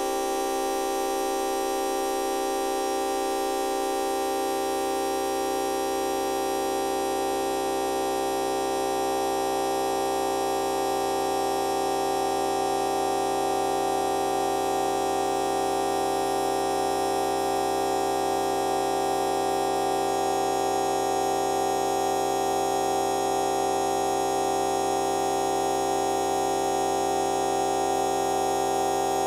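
A fart sound effect time-stretched to an hour, heard here as a steady, unchanging drone of many held pitches. A low layer comes in about four seconds in.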